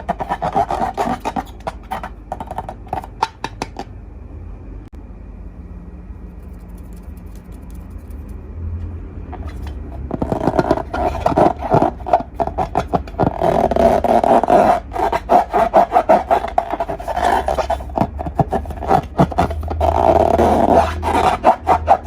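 Slime being squished and kneaded by hand, making dense sticky crackles and pops. It goes quiet for several seconds after about four seconds, then starts up again.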